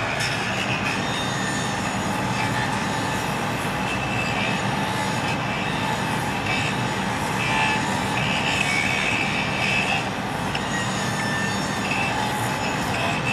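A train running along the track: a steady rumble with a high whine or squeal coming and going over it.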